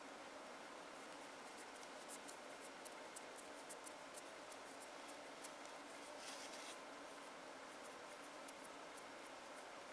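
Faint scattered ticks and scraping of a thin metal spatula slowly stirring glitter into thick hard gel in a small plastic jar, with a short rub about six seconds in.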